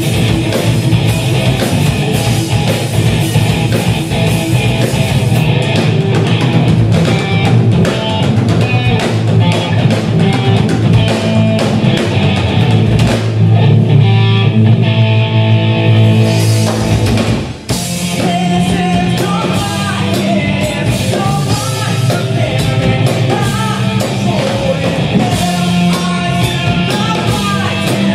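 Live rock band playing loud: electric guitar, bass guitar and drum kit. The music drops out for a moment about two-thirds of the way through, and a singer comes in over the band after it.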